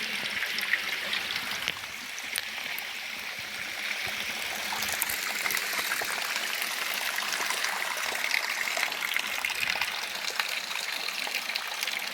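Natural spring water running and trickling over rocks, a steady splashing flow.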